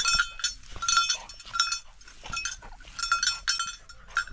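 A hunting dog's collar bell clanking irregularly, a few strikes a second, as the dog moves about.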